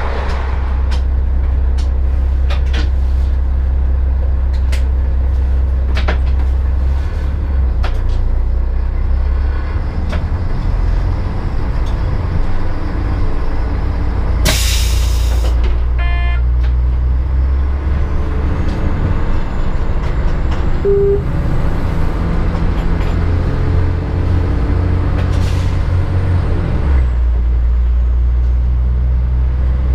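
Stadler RegioShuttle (class 650) diesel railcar heard from the driver's cab, its underfloor diesel engine running with a deep steady drone. About halfway through there is a short hiss of compressed air, then a quick series of beeps. The railcar then pulls away, the engine note stepping up and down with a faint high whine rising over it.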